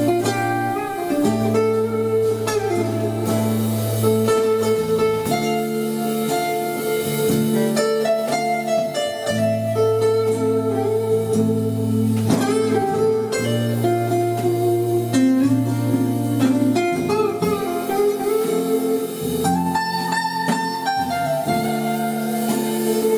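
Live instrumental passage on a steel-string acoustic guitar, chords and held notes changing every second or two, with light drum hits from an accompanying drum kit.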